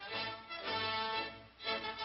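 Background film-score music of sustained held notes, dipping briefly twice.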